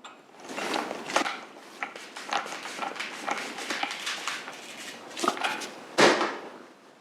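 A run of irregular clinks, knocks and short scrapes from metal parts and tools being handled, with one louder knock about six seconds in.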